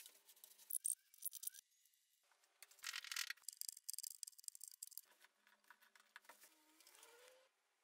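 Faint, scattered clicks, rattles and light scrapes of small wooden pieces and a plastic band clamp being handled and fitted on a workbench.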